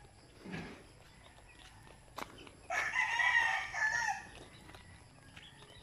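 A rooster crowing once, a single call of about a second and a half starting a little past halfway through.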